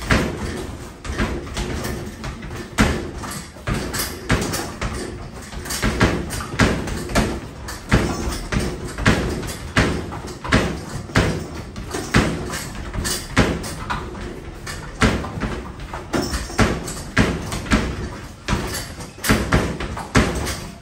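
Basketballs being shot rapid-fire at an arcade basketball machine: a continuous run of hard thumps, about two a second, as balls hit the backboard and rim, drop through the nylon net and bounce back down the return ramp.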